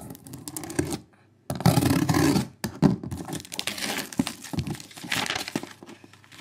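Clear plastic packing-slip pouch being slit with a razor blade and torn open, then crinkling as the paperwork is pulled out. The loudest tearing comes about a second and a half in, after a short pause.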